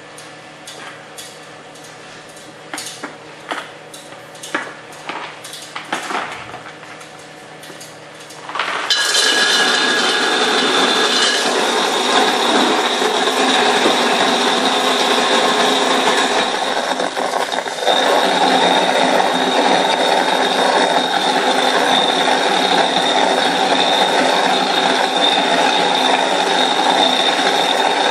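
A few light knocks and clicks, then about nine seconds in a laboratory pellet mill's electric motor switches on and runs steadily with a mechanical whir and a high whine, getting a little louder about halfway through.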